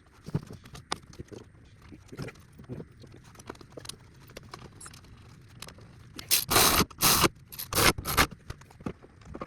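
Hand work on car parts: scattered light clicks and knocks of tools and metal. These are followed by several loud scrapes, about two-thirds of the way in, as parts are dragged against each other.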